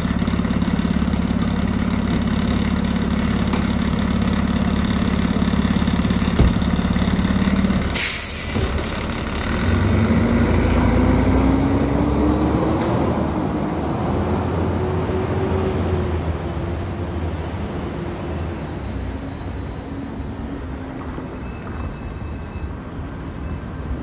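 Seagrave tower ladder fire truck's diesel engine idling steadily, then a sharp hiss of the air brakes releasing about eight seconds in. The engine then revs up slowly as the truck pulls away, growing fainter near the end.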